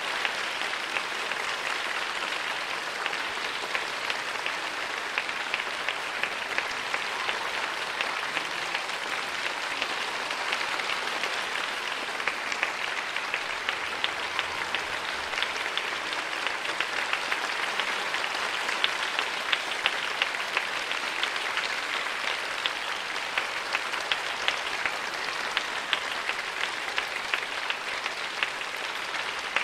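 Theatre audience applauding steadily: a dense patter of many hands clapping, with no music.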